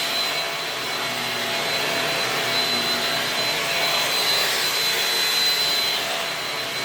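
Shark Rocket corded stick vacuum running steadily: a rush of air with a steady high whine above it.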